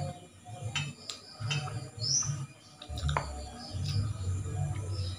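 Close-up chewing and mouth sounds of someone eating soft-cooked chicken feet, with a few small clicks. A bird chirps once in the background about two seconds in.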